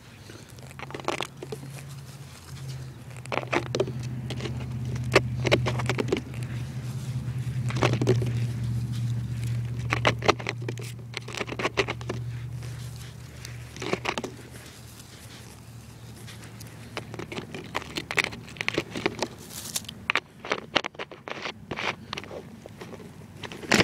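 Scattered crackling clicks and rustles, as from grass blades and a hand brushing close to the microphone, over a low steady hum that swells and then fades out after about fifteen seconds.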